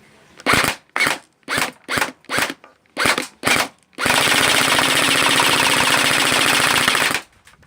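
Airsoft gun firing on automatic: seven short bursts in quick succession, then one long burst of about three seconds.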